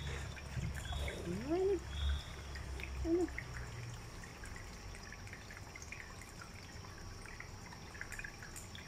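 Long-haired cats chewing dry kibble from steel bowls: faint, scattered crunching clicks throughout. A short rising voice-like sound comes about a second and a half in, with a briefer one near three seconds.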